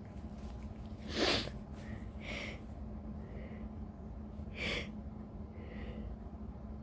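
A woman's sneeze buildup: one sharp, noisy breath about a second in, the loudest event, then several quieter hitching breaths spaced a second or so apart.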